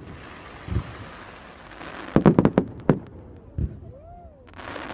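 Fireworks going off: a steady hiss, a dull thump, then a quick cluster of sharp bangs about two seconds in, another thump, and a short whistle that rises and falls near the end before the hiss returns.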